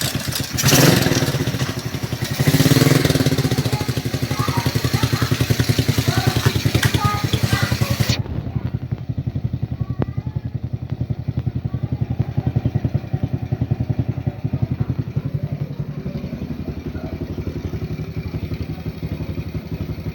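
Rusi motorcycle's small single-cylinder engine running, with two brief throttle blips in the first few seconds, then settling to a steady, evenly pulsing idle. It runs on a battery-fed 4-pin CDI fitted in place of the original 5-pin unit.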